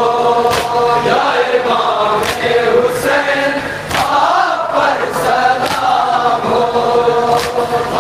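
Men's voices chanting a nauha, a Shia lament, together in unison behind a lead reciter on microphone, sung in long held phrases. Sharp hand slaps of matam chest-beating come every second or two.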